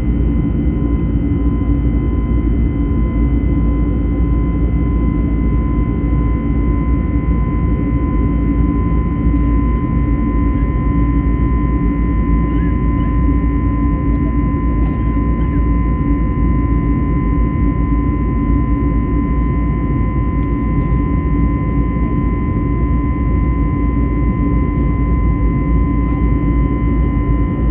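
Cabin noise of an Airbus A321neo in the climb, its CFM LEAP-1A turbofans running at climb thrust: a steady rumble and rush of air with a thin, steady whine on top, unchanging throughout.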